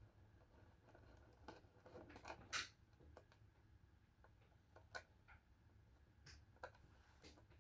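Near silence with a few faint, scattered clicks and taps: small computer parts being handled during a PC build.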